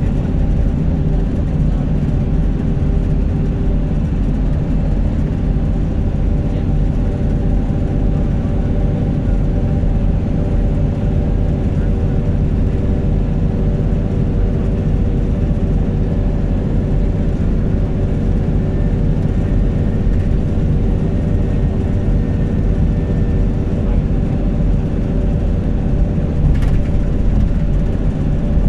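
Steady road and engine drone heard inside a vehicle travelling at highway speed: a heavy low rumble with an even, unchanging hum.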